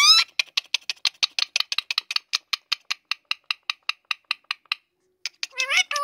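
Rose-ringed (Indian ringneck) parakeet imitating laughter on command: a long run of short, clipped "ha" notes at about nine a second for over four seconds. It stops, and near the end a short call slides in pitch.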